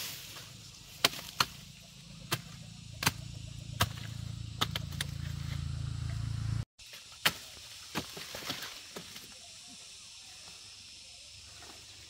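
A series of sharp strikes, roughly one every half second to a second, over a low steady hum that cuts off abruptly a little past halfway; fainter strikes follow.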